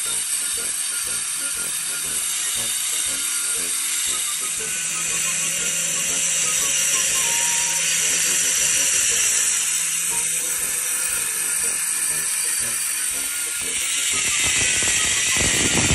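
Handheld angle grinder with a stone-cutting blade cutting into a thick granite slab, making a steady, high-pitched grinding.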